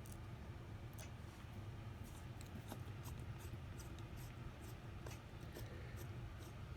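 Faint, scattered small clicks and scrapes of small repair tools working a tiny standoff screw into an iPhone SE, over a steady low hum; the standoff is not going in.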